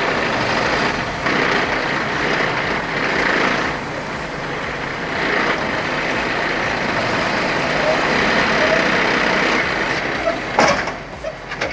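A log truck's mounted hydraulic loader working: the engine runs steadily under load with the rushing noise of the hydraulics. A sharp knock comes about ten and a half seconds in.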